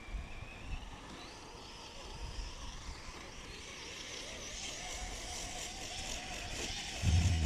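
Whine of an electric motor climbing steadily in pitch, with wind rumbling on the microphone that turns louder near the end.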